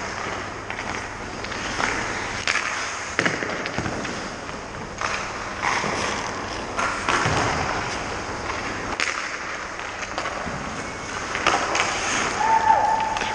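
Hockey skate blades scraping and carving the ice close by, with sharp knocks and clacks on the ice throughout. A short high squeal comes in near the end.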